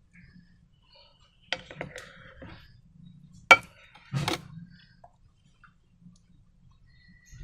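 Hard objects being handled: a few sharp clicks and knocks, the loudest a single click about three and a half seconds in, followed by a short rustling scrape.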